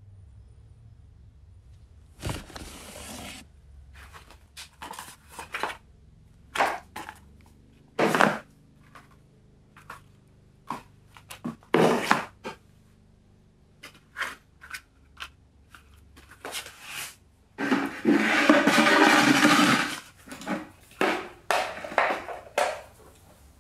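Books, notebooks and papers being handled in a plastic storage box: a string of short knocks, rustles and scrapes, with one longer rustle of about two seconds about three-quarters through.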